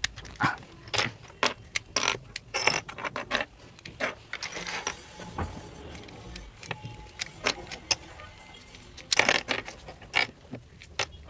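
Plastic pieces of a Rubik's brand 3x3 cube clicking and knocking together as the cube is assembled and handled: irregular sharp clicks, with a louder cluster about nine seconds in.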